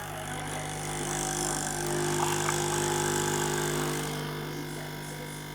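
A small motor humming steadily with several held tones, growing louder over the first couple of seconds and easing off after about four seconds.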